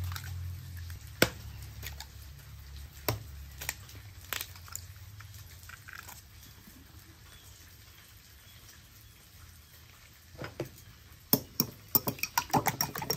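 Eggs cracked against the rim of a bowl, a few sharp knocks in the first seconds, then a fork beating the eggs in the bowl, with quick clinking ticks near the end.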